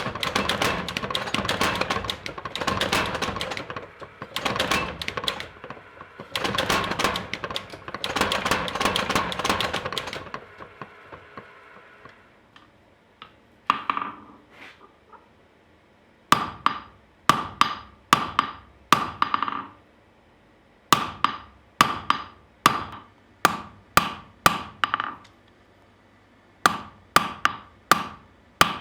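A blacksmith's hammer working steel on an anvil. The first ten seconds are a dense, rapid clatter in bursts. After a short pause come separate ringing hammer blows, in runs of about two a second.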